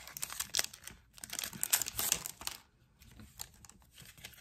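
Paper packet of sticker frames being opened and handled: dense crinkling and crackling for the first two and a half seconds, then fainter rustling as the stickers are pulled out.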